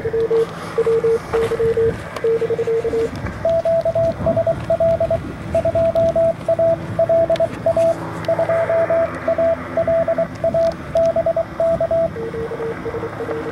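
Morse code (CW) from an amateur radio receiver over band hiss: a lower-pitched station keys for about three seconds, a higher-pitched station answers with a long run of dots and dashes, and the lower tone comes back near the end, as in a two-way contact exchange.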